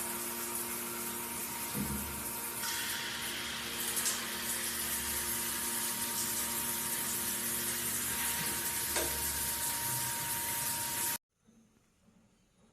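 Water spraying steadily from a shower head fed by an instant water heater, a constant hiss with a steady hum and a faint high tone underneath. It stops abruptly near the end.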